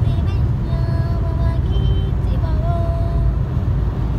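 Steady low rumble of a car driving on the road, heard from inside the cabin, with a few long held musical notes over it.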